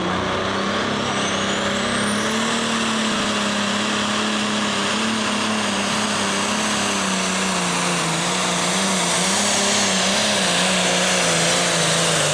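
Pro Stock pulling tractor's turbocharged diesel engine running flat out under load as it drags the sled. A high turbo whine climbs over the first two seconds or so and then holds, over a steady engine note that wavers slightly.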